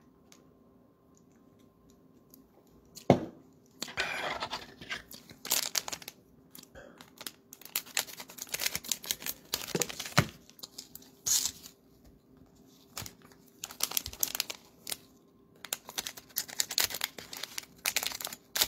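Cellophane wrappers of basketball-card cello packs crinkling and tearing as they are opened, in repeated bursts from about four seconds in. A single sharp knock about three seconds in is the loudest sound.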